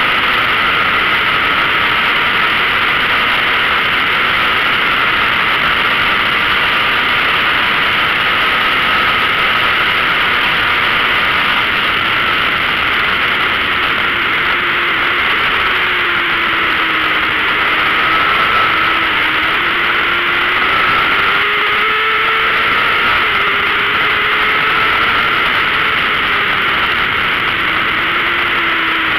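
Onboard sound of a 600 cc racing sport bike at speed: a steady heavy rush of wind over the microphone mixed with the high-revving engine, whose note rises and falls from about halfway through.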